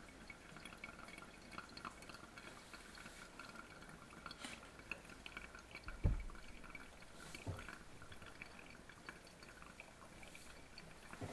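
Faint trickle and drip of brewed coffee draining through a Hario V60 dripper into a glass beaker. A sharp knock on the table about six seconds in, and a lighter one a second and a half later.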